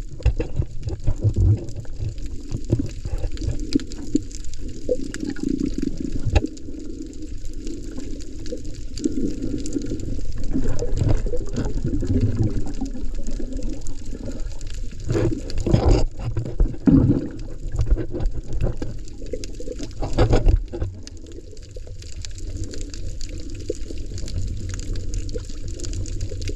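Muffled underwater water noise: a steady low wash of moving water with irregular bubbling and small knocks.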